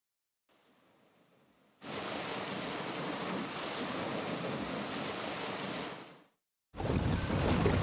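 Sea waves and wind: a steady rushing noise that starts about two seconds in and fades away after about six seconds, then, after a brief gap, a louder, rougher rush with more low rumble begins near the end.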